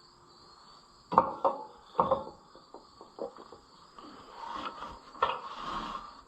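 Metal parts and tools being handled: several sharp, ringing clanks in the first couple of seconds, then lighter clicks and a scraping rub with another clank about five seconds in.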